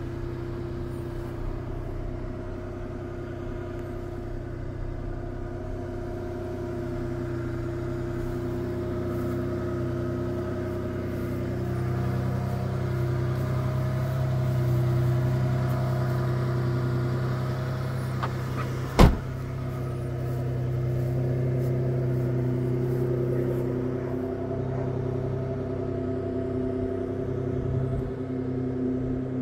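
Toyota Tacoma's rebuilt 3.4-litre V6 idling steadily, growing somewhat louder partway through. A single sharp knock comes about two-thirds of the way in.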